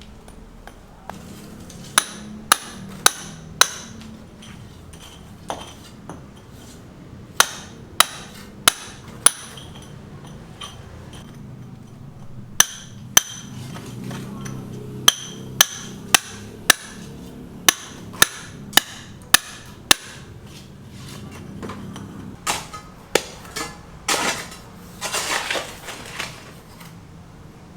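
Hammer blows on a building site: sharp, ringing strikes in runs of four or five, about two a second, with pauses between the runs. Near the end comes a louder stretch of clattering and scraping.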